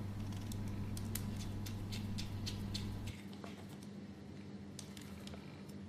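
Faint, irregular small clicks and ticks of wires and screw-terminal connectors being handled while the controller is wired, over a low steady hum that cuts off about three seconds in.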